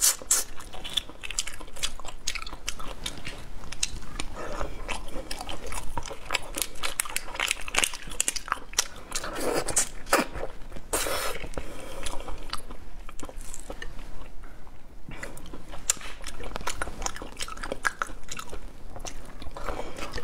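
Close-up eating of raw shrimp: biting into and crunching the shells and heads, with wet chewing and crackling throughout.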